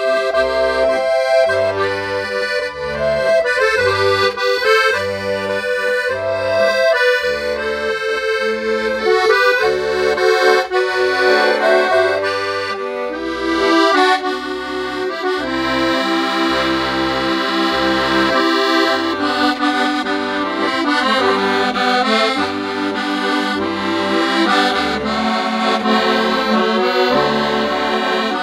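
Melodija Tosca piano accordion playing a tune: a right-hand melody over regular left-hand bass notes and chords. The instrument has just had a complete service, with new valves, waxing, tuning and an overhauled bass mechanism.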